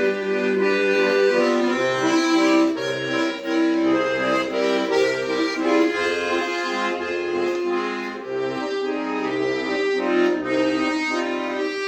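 Accordion playing an instrumental passage between verses: sustained chords in the right hand over bass notes that alternate in a steady rhythm.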